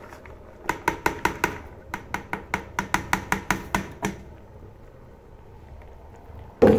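Quick runs of sharp knocks, about seven a second, from a utensil tapping against a cutting board or pot rim as chopped garlic and peppers are knocked into a cooking pot. A single louder knock comes near the end.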